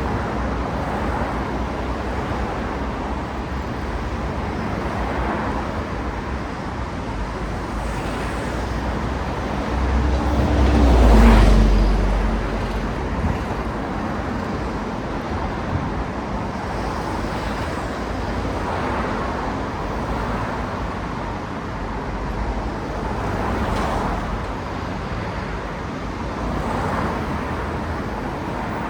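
Steady city road traffic, cars passing one after another. One vehicle passes close about a third of the way in, the loudest moment, its engine pitch dropping as it goes by; smaller passes follow.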